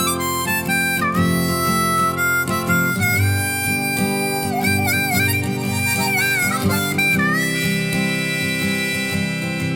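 Instrumental close of a folk song: a lead melody with bent notes over accompanying chords, settling on one long held note near the end.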